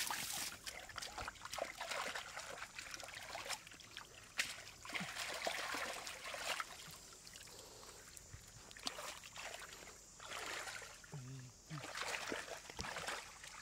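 Shallow water splashing and trickling in irregular bursts, a few every second or two.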